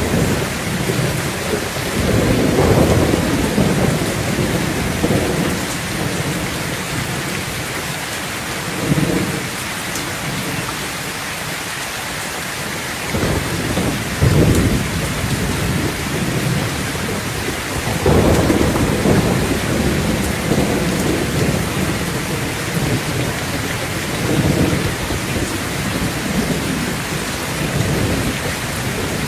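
Heavy rain drumming steadily on a metal roof, with low thunder rumbling several times, swelling and fading.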